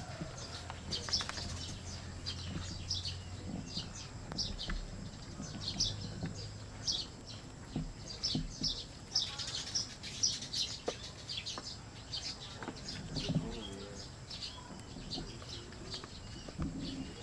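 Many short, high-pitched animal chirps, repeated irregularly throughout over a steady outdoor background, with a low hum during the first half.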